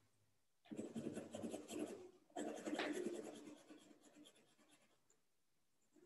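Coloured pencil scribbling on paper in two runs of quick back-and-forth shading strokes, the second run tapering off.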